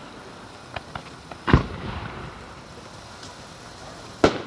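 Fireworks bursting overhead: a few small cracks just under a second in, a loud bang about a second and a half in, and another loud bang near the end.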